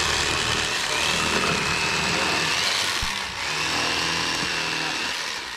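Electric fillet knife running with a steady motor buzz as its blades cut fillets from crappie, dipping briefly a little after three seconds.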